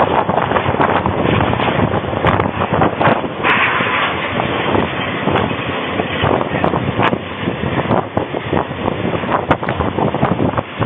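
Strong storm wind blowing hard and buffeting the microphone in gusts, with many short knocks scattered through it.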